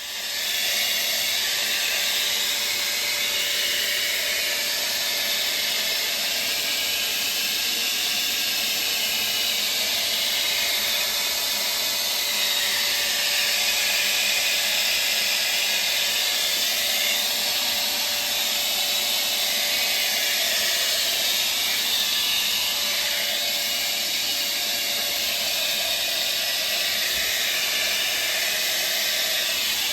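Handheld hair blow dryer running steadily, a loud airy hiss with a faint motor hum under it, blowing hot air onto an iced-over refrigerator coil to melt the ice.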